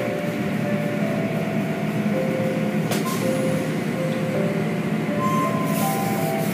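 Automatic car wash heard from inside the car: a steady rush of water spray and cloth brushes over the body, with a single knock about three seconds in and a burst of spray hiss near the end. Slow music of held notes plays through it.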